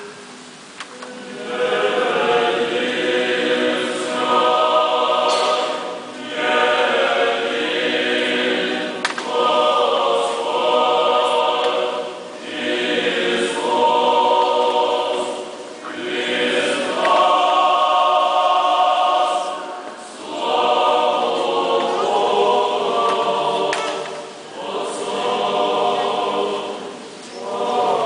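Orthodox liturgical choir singing unaccompanied in several voices, in phrases of a few seconds each with brief breaks between them. The singing begins about a second and a half in.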